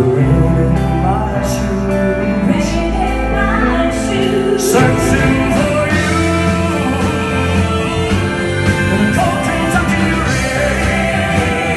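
Live band playing a country-rock ballad, with drums, guitar and singing.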